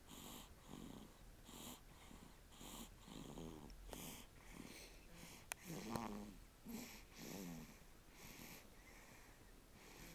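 Faint snoring in quick, short breaths, about one and a half a second, each a low buzzing rasp with a breathy hiss. A single sharp click comes about five and a half seconds in.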